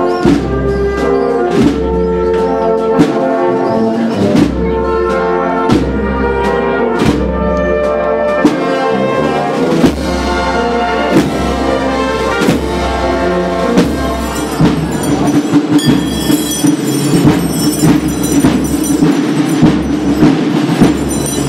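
Spanish municipal brass band playing a processional march (marcha procesional): brass chords over a drum beat about once a second. About two-thirds of the way through, the music changes to a steadier, busier passage.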